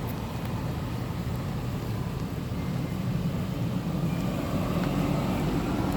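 A steady low rumble like a motor running, growing somewhat louder about halfway through.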